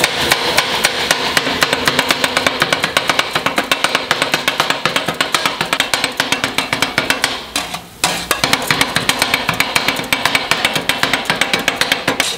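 Kottu roti being chopped on a flat-top griddle with a pair of metal blades: a fast, even clatter of steel striking the hot plate, several strikes a second, with a short break about seven and a half seconds in.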